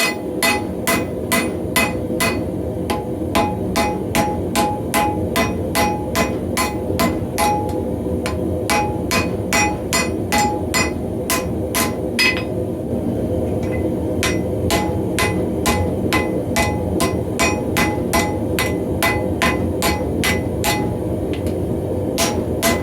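Steel hammer striking metal on an anvil in a steady rhythm of about two to three blows a second, each blow ringing, with a short pause about halfway through. A steady roar from the forge runs underneath.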